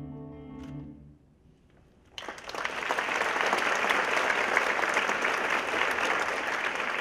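The last notes of the music fade out about a second in. After a moment of near silence, an audience starts applauding at about two seconds, and the dense clapping goes on to the end.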